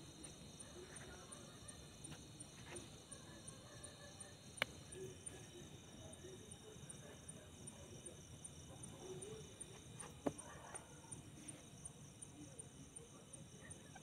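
Night insects, crickets, chirping steadily in a fast, even pulse, faint throughout. Two sharp clicks stand out, one a little before halfway and one about three-quarters of the way in.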